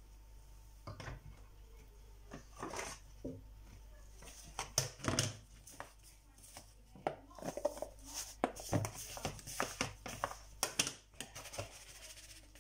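Gloved hand tossing pork strips in flour in a plastic tub: irregular rustling and scraping, with light taps and clacks of the plastic bowl, busiest in the middle of the stretch.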